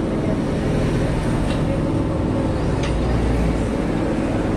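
Metal lathe running with a steady hum, turning a steel sliding-gate wheel, with a couple of faint ticks.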